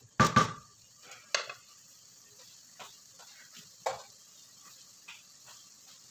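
A wooden spoon knocked against a stainless-steel pot: a loud clack just after the start, a second sharp knock about a second later, then a few lighter knocks. Under it runs a faint steady sizzle of lamb cubes browning in the pot.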